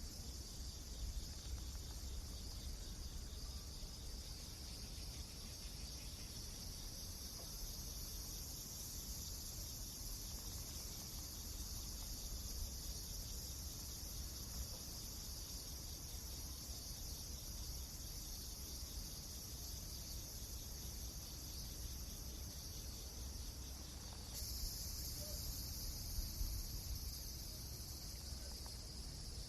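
Steady high-pitched insect chorus, like crickets, over a low rumble with a few faint ticks; the chorus changes abruptly about 24 seconds in.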